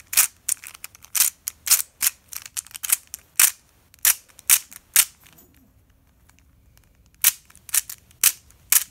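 Plastic Square-1 twisty puzzle turned quickly by hand: sharp plastic clicks and clacks as the layers and slice snap into place, about two a second, stopping for a couple of seconds midway before starting again.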